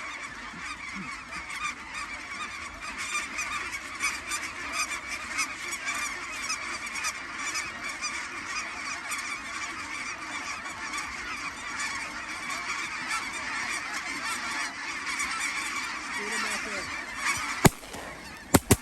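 A huge flock of snow geese calling, a dense, continuous chorus of overlapping honks. Near the end two loud shotgun shots crack out about a second apart.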